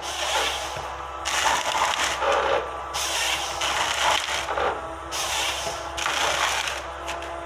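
Tracked forestry harvester working a pine stem with its Waratah H414 head: repeated surges of noise from the head, about every one and a half to two seconds, over the steady hum of the machine's diesel engine.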